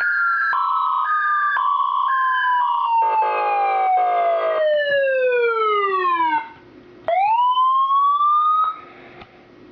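Electronic emergency-vehicle siren. A slow wail falls in pitch, overlaid near the start by a quick two-tone hi-lo alternation and then a buzzy horn blast of about a second and a half. It cuts off about six and a half seconds in, and a second wail starts rising, then breaks off near the end.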